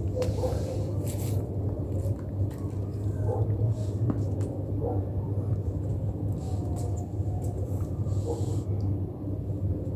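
A steady low background rumble, with a few faint taps and scuffs from cats' paws batting at a beetle on a hard stone floor.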